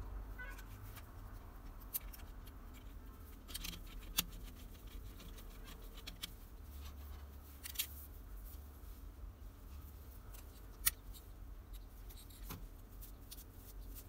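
Light handling of electrical wire and tools while wiring a switch board: faint rustling with about six scattered sharp clicks, over a low steady hum.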